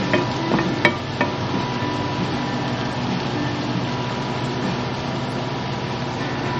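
Ground beef sizzling in a skillet while a slotted wooden spatula breaks it up, with a few sharp knocks of the spatula against the pan in the first second or so.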